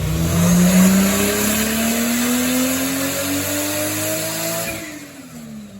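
Turbocharged Toyota 2JZ-GE VVT-i straight-six making a full-throttle dyno pull on about 5 psi of boost: the engine's pitch climbs steadily for about four and a half seconds, then falls away as the throttle is lifted near the end.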